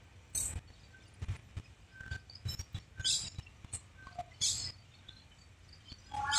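Birds chirping in short, scattered calls over a faint low rumble. Near the end a loud, steady tone of several notes at once starts up.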